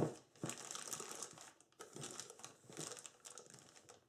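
Thin plastic disposable piping bag crinkling in several short bouts as it is folded down over the rim of a glass.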